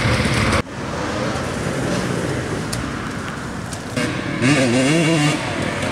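Enduro dirt bike engines revving hard, cutting off abruptly about half a second in. Then a single dirt bike engine runs at a distance, growing louder over the last second and a half, its pitch rising and falling with the throttle.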